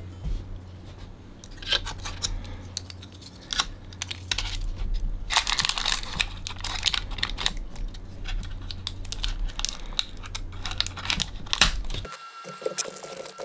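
Tissue paper crinkling and tearing as it is peeled off an epoxy resin casting, with small clicks of metal binder clips being unclipped, over a low steady hum. The hum and crinkling stop about twelve seconds in, and a faint steady hiss follows.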